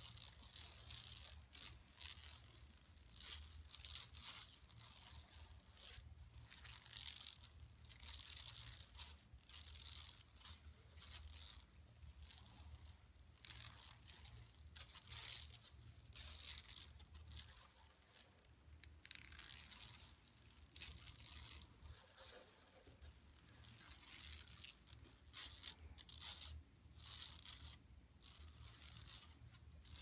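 Long fingernails scratching over a shopping bag in irregular rough strokes, about one or two a second, with a faint steady low hum underneath.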